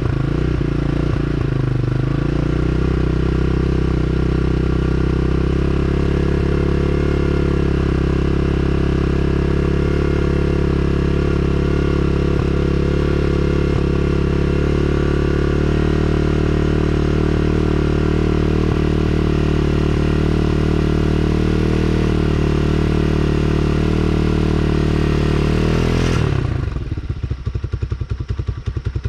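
Tao Tao TBR7 motorcycle engine running steadily at raised revs, then dropping abruptly to idle near the end.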